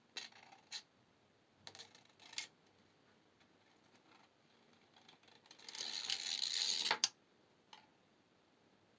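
Thin brass wire strung with small beads being handled and wrapped around a gem: a few small clicks and scrapes, then a longer scraping rustle of wire about six seconds in lasting just over a second.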